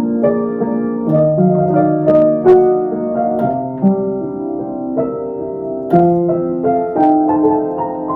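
Background music: a gentle piano melody with note-by-note attacks and sustained chords.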